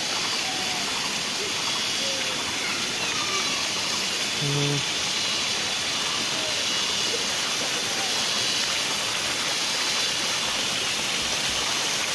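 Steady rush of flowing river water, even and unbroken throughout. A short voiced sound from a person breaks in about four and a half seconds in.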